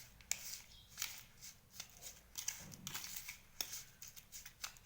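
A crumbly mawa, paneer and sugar mixture being stirred in a bowl: irregular light scraping and clicking, a few strokes a second.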